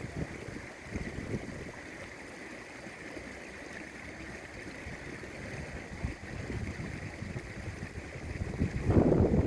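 Strong wind buffeting the microphone in gusts over the steady rush of a river, with the strongest gust near the end.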